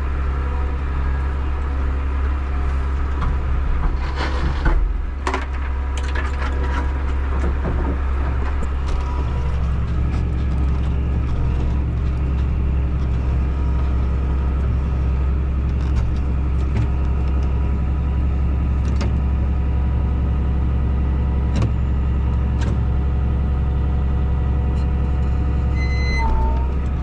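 John Deere 7810 tractor's six-cylinder diesel engine running steadily, with a few sharp knocks and clicks about four to six seconds in. The engine note grows fuller about nine seconds in, and a short beep sounds near the end.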